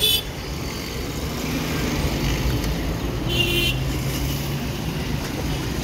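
Steady roadside traffic noise, with a vehicle engine running through the middle and a brief high chirp about three and a half seconds in.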